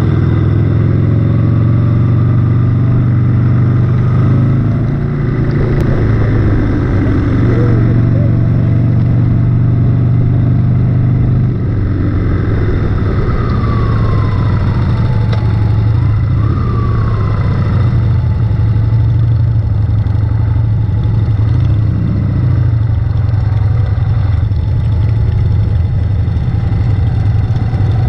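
Harley-Davidson Sportster's air-cooled V-twin engine running steadily as the bike rides along.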